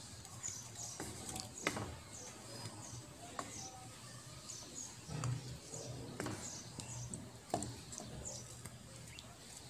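Wooden spatula stirring chicken pieces in broth in a metal pot, with a few scattered knocks and scrapes against the pot. Small birds chirp repeatedly in the background, over a low hum.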